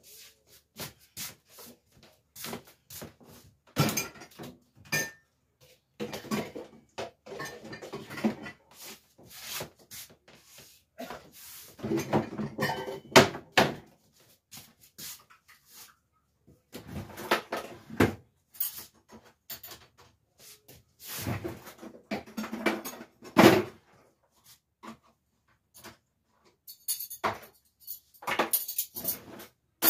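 Dishes clinking and knocking together while being put away, with kitchen cabinet doors opening and shutting: a scattered run of clatters and knocks, busiest about halfway through and again about three-quarters of the way in.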